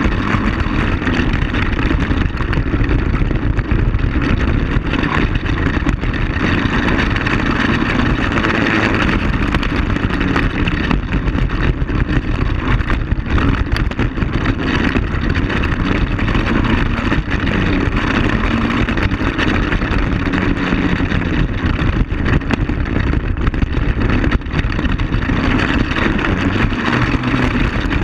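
ATV (quad bike) engine running steadily at riding speed along a bumpy dirt track, with frequent knocks and rattles from the bumps.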